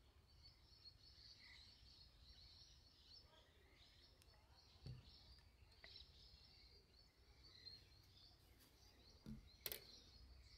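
Near silence: faint outdoor ambience with a steady high chirping and a low rumble, broken by a couple of faint knocks, one about halfway through and one near the end.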